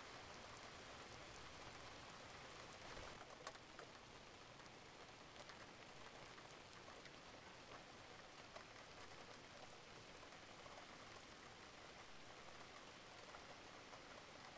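Near silence: a faint steady hiss, with a soft tap about three and a half seconds in and another near nine seconds as paper cards are laid on a wooden table.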